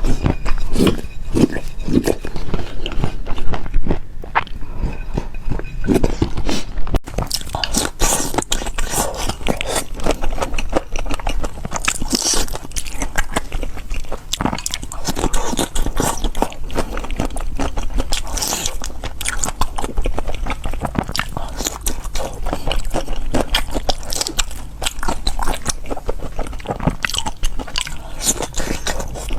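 Close-miked eating: a person biting and chewing crunchy food, with dense irregular crackles and crunches throughout.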